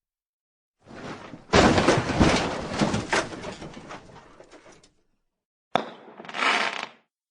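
A sound effect: a sudden loud clattering crash of several impacts that fades out over about three seconds, then a sharp click and a short rushing burst near the end.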